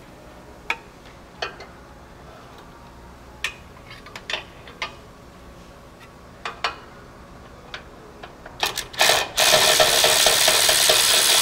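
Ratchet on an extension working a lower exhaust manifold bolt on a 5.7 Hemi. First come scattered clicks and taps as the socket is fitted. Then, from about nine seconds in, a loud fast continuous ratcheting as the freed bolt is run out.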